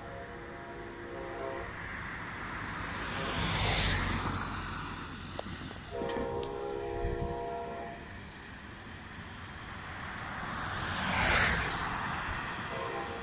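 Train horn sounding in held blasts: one at the start, one about six seconds in lasting about two seconds, and another beginning near the end. Between the blasts, two road vehicles pass close by, each a rising then falling rush of tyre noise, the louder sounds here.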